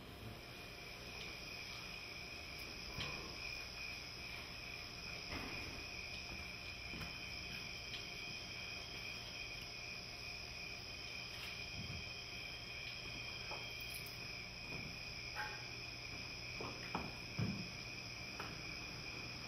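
Faint, steady high trilling of crickets, part of the installation's soundtrack, with a few soft clicks and knocks scattered through.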